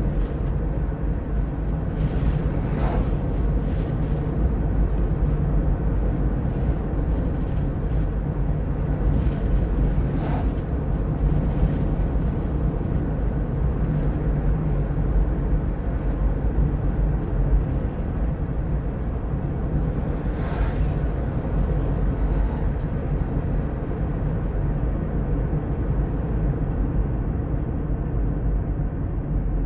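Steady low rumble of a car's engine and tyres on the road, heard inside the moving car's cabin. A brief high chirp sounds about twenty seconds in.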